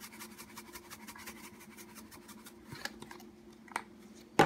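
Seasoning shaken from a shaker over a pot of broth: a fast run of faint rattling ticks, over a faint steady hum. There are a few small clicks and one sharp tap near the end.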